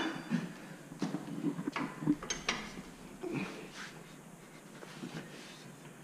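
Scattered light clicks and knocks, most of them in the first three seconds and sparser after, from handling during rear brake work on a car.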